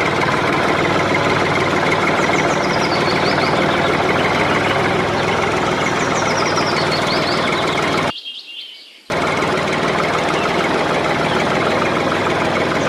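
Steady whirring of a small motor running, cut off for about a second about eight seconds in, with birds chirping over it.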